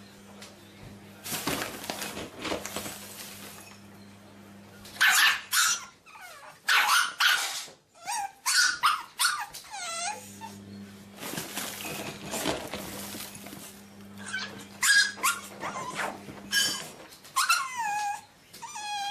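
Black pug puppy barking in short high-pitched yaps and yelps, starting about five seconds in. Some calls slide downward in pitch like little howls.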